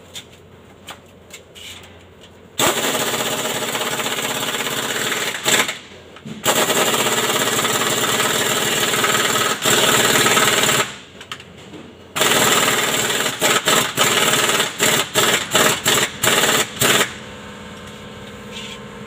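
Pneumatic impact wrench running on bolts under a vehicle: three long bursts of a few seconds each, then a string of short, quick trigger bursts near the end.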